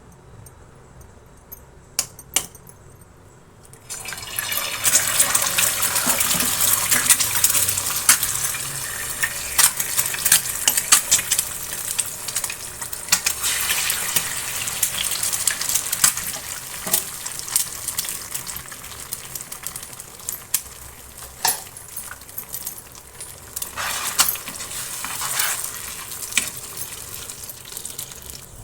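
Food sizzling in a hot pan, starting suddenly about four seconds in, with frequent sharp clicks of a utensil stirring against the pan.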